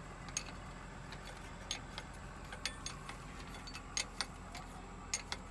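Irregular sharp clicks and light metallic clinks, about a dozen, over a steady low hum.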